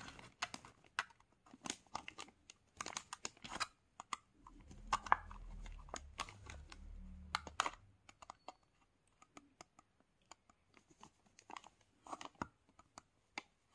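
A cutter blade slowly sawing through a thin plastic curd cup, making irregular scratchy clicks and crackles as it goes. A low rumble runs for a few seconds in the middle.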